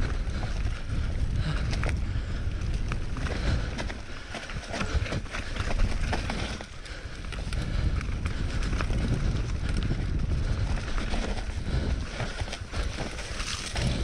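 Bulls Wild Mojo 3 mountain bike descending a dirt forest singletrack at race speed: tyres rumbling over dirt and roots with a steady clatter of knocks and rattles from the bike, and wind buffeting the action-camera microphone.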